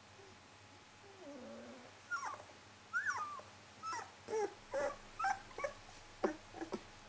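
Young puppy whimpering: a low grumble, then a run of about ten short, high whines and yips.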